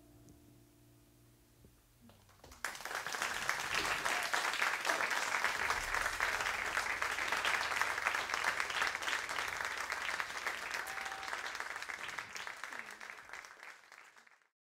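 Audience applauding after a live song, starting suddenly about two and a half seconds in after a near-silent pause, then fading out and cutting off shortly before the end.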